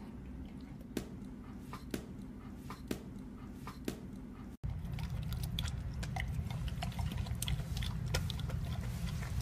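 Husky crunching dry kibble from a bowl: many small quick crunching clicks over a steady low hum, starting about halfway through. Before that, faint single clicks come about once a second.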